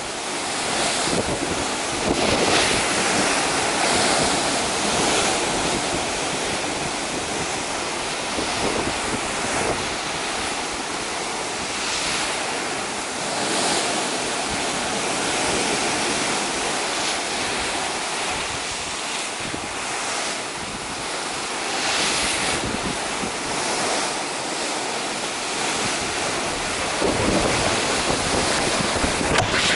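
Rough sea churning into white water along a cruise ship's side: a steady rush of breaking water that swells and eases in surges, with wind buffeting the microphone.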